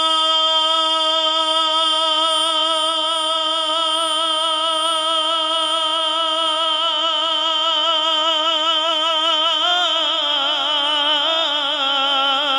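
A man's voice sings a devotional naat, holding one long note. The note is steady at first, then the vibrato grows wider. About ten seconds in it drops a little lower into quick ornamental turns.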